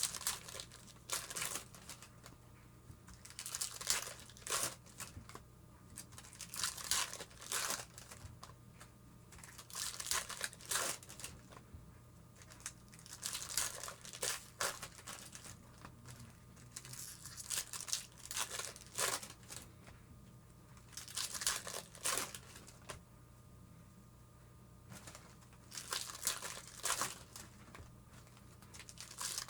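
Baseball card pack wrappers being torn open and crinkled, one pack after another, in bursts of crackling about every three to four seconds.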